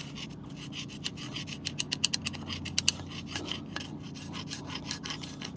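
A steel brake caliper file scraping back and forth in the pad slots of a Land Rover LR4/LR3 front caliper bracket, in quick, short strokes that are loudest about two to three seconds in. The filing clears rust and grime from the slots so the new pads seat flat.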